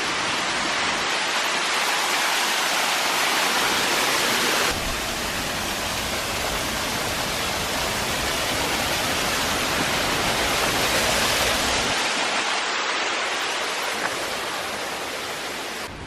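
Steady rushing roar of the Coban Sewu waterfall heard along the path toward it, with a deeper low rumble added from about five seconds in to about twelve.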